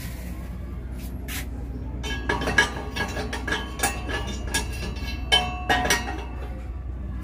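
A round metal disc clinking and rattling as it is handled and set onto the steel burner pot of a homemade stove: a run of sharp metal knocks that ring briefly, from about two seconds in until about six seconds in. A steady low hum runs underneath.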